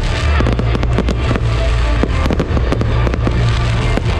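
Aerial fireworks shells bursting and crackling in quick succession, with music playing underneath.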